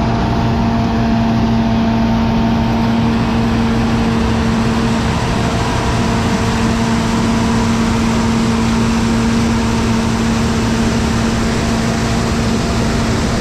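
John Deere Turbo 6620 combine harvester running steadily while cutting soybeans: a continuous drone of the engine and threshing machinery with a steady hum running through it.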